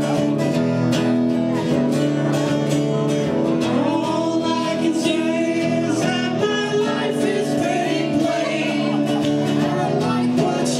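Live band music: a strummed guitar with a voice singing over it, the sung line standing out more from about four seconds in.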